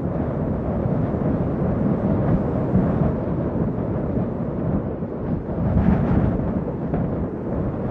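A continuous low rumble that swells and eases irregularly, with no clear tones or strokes.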